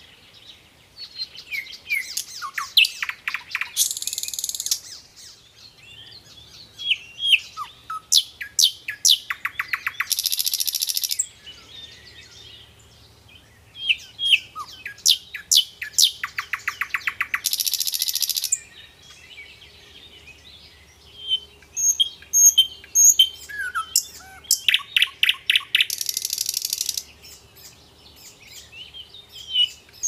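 Common nightingale singing: four long, varied song phrases with short pauses between them. Each mixes sharp whistled notes, fast runs of repeated notes and a loud, hissing rattle near its end.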